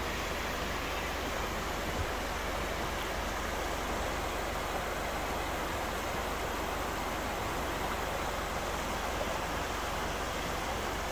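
Shallow rocky creek rushing steadily over stones, a continuous, even wash of water.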